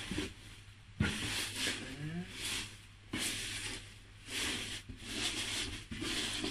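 Shredded paper filler rustling in a cardboard box as hands dig through it looking for any items left, in several bursts, with a single knock against the box about a second in.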